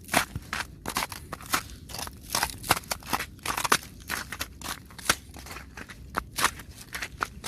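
Icy crusted snow being tapped and scratched: an irregular run of sharp, crisp crunching taps and short scrapes, several a second.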